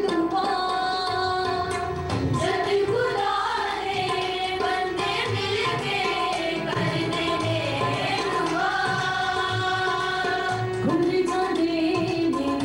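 Women's choir singing a hymn, a lead female voice carrying the melody with the group, accompanied by a harmonium.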